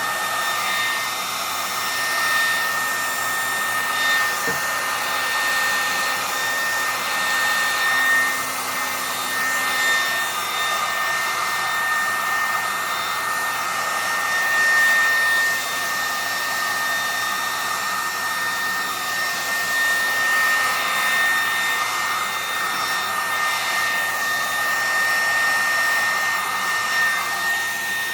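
Hair dryer running loudly and steadily, a rush of air with a constant high whine over it.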